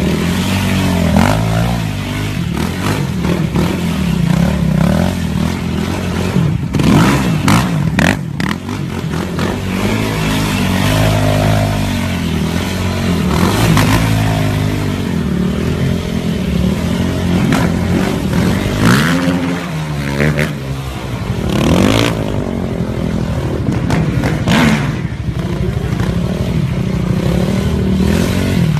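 Sport quad (ATV) engine revving up and down over and over as it is ridden hard and wheelied, its pitch rising and falling, with a few sharp cracks over it.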